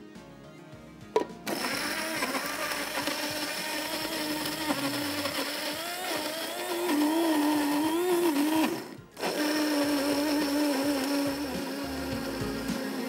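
Electric blender switched on about a second in, its motor whirring as it grinds whole spices, onion, tomato, green chili and oil into a marinade paste, the pitch wavering with the load. It cuts out briefly near nine seconds and starts again.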